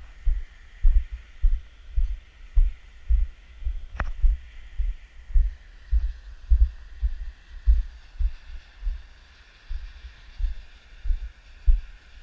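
Dull low thuds about twice a second as footsteps jolt a hand-carried action camera while walking on dry clay ground, over a faint steady hiss, with one sharp click about four seconds in.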